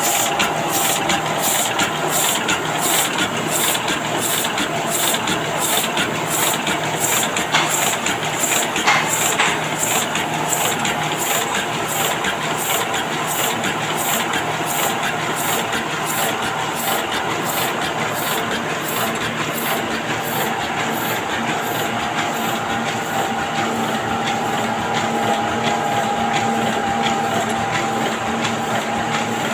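Heidelberg GTO two-colour offset printing press running, a steady mechanical clatter with a regular beat at about one to two a second as sheets are fed through.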